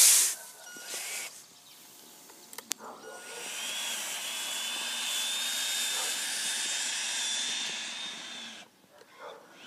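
Scale RC dump truck's electric hydraulic tipper pump running with a steady high whine over a hiss for about five seconds while the raised bed is worked, cutting off suddenly near the end. Right at the start there is a brief loud rush as the load of sand slides out of the tipped bed.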